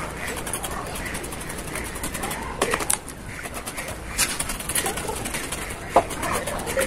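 A knife blade scraping the charred, singed hide off a beef trotter, in quick runs of short strokes with brief pauses between them.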